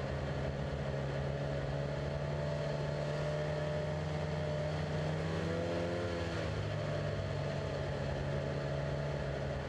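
Snowmobile engine running steadily while riding along a trail, its pitch rising and falling briefly about five to six seconds in.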